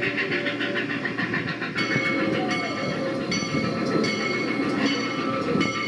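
Toy train running along its track, with a steady rhythmic clatter of wheels over the rail joints.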